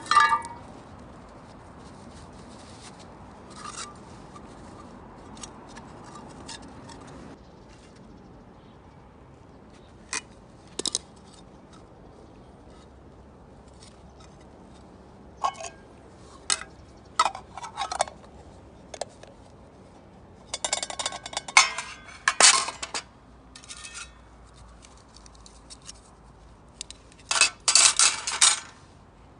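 Intermittent metallic clinks and scrapes of camp cookware and utensils: scattered single knocks, with two denser flurries about two-thirds of the way in and near the end.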